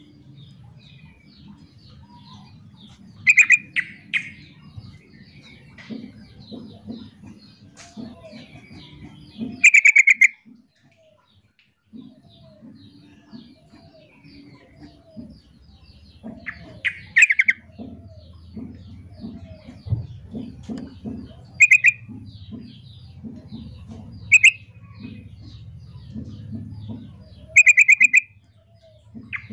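Yellow-vented bulbul (trucukan) calling in short, loud, bubbly bursts, about seven times, over faint chirping and a low background rumble. It is a female's call, used to lure males into answering.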